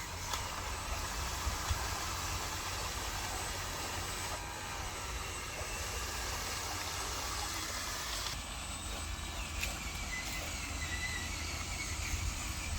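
Small electric motor and gears of a homemade 12-volt RC dump truck running with a steady whirring noise and a low rumble underneath. Its sound shifts abruptly about four and a half and eight and a half seconds in, and a faint wavering whine comes in near the end.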